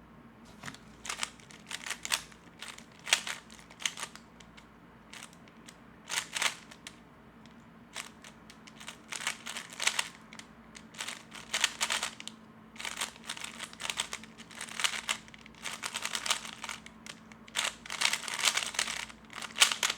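3x3 Rubik's Cube being turned fast during a timed speedsolve: quick runs of plastic clicking and clacking with short pauses between them, the runs growing denser in the second half.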